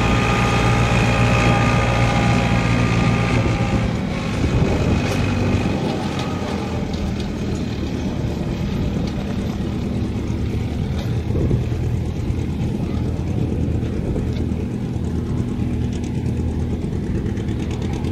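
Antique farm tractor engine running at a tractor pull. A steady engine note drops a little and turns rougher about four seconds in, then keeps going.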